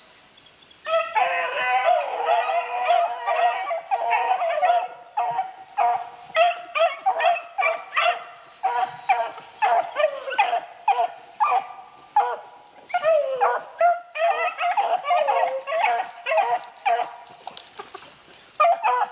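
Rabbit hounds baying: a fast string of short, high barks with a few longer drawn-out howls, starting about a second in. It is the cry of the pack running a rabbit's scent trail.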